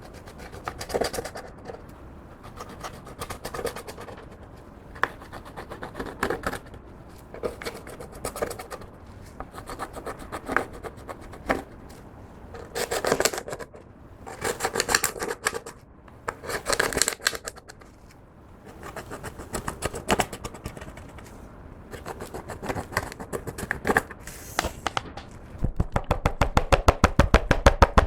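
Close-miked scraping and crackling as makeup is worked into clear slime, in bursts a second or two long, turning into a fast run of sharp clicks near the end.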